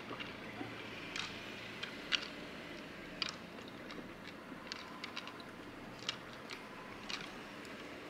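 Two white-tailed deer bucks sparring with antlers locked: scattered, irregular sharp clicks of antler against antler, with light crunching of dry leaves underfoot.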